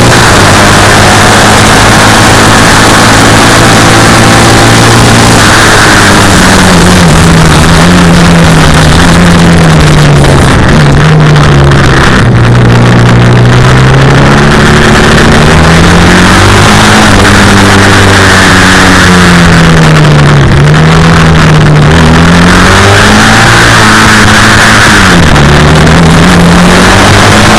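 Classic racing sidecar outfit's engine, very loud, revving hard: its pitch climbs and falls again and again as it accelerates, changes gear and brakes.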